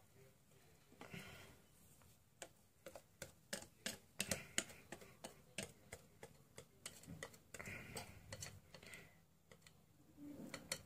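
Thick cake batter being poured from a glass bowl into a cake mould: faint soft sounds with a run of light, irregular clicks from about two seconds in until about eight seconds in.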